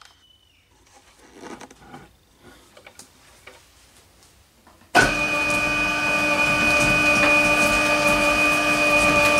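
Twin-shaft shredder running: a loud, steady machine whine made of several steady tones over a rushing noise, which comes in suddenly about five seconds in. Before that there are only faint rustles and small knocks.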